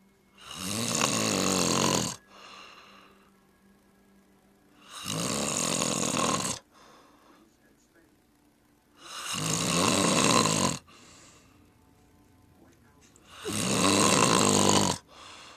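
A sleeping person snoring: four long, loud snores about every four seconds, each lasting under two seconds and followed by a softer breath.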